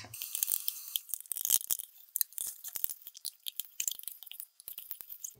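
A fork stirring soupy puppy mush in a stainless steel puppy saucer pan: quick, irregular clicks and scrapes of metal on metal as it mixes the wet food.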